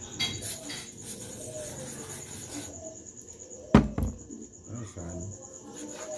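A cricket chirping in a steady, rapid high-pitched trill. A hiss runs through the first couple of seconds, and a single sharp knock comes a little past halfway, followed by a smaller one.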